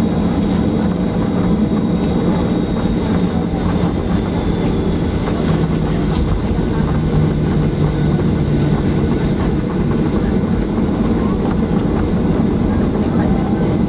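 Boeing 737-800 cabin noise while taxiing: a steady low rumble from the CFM56-7B engines at idle and the wheels rolling on the taxiway, with a faint steady high whine.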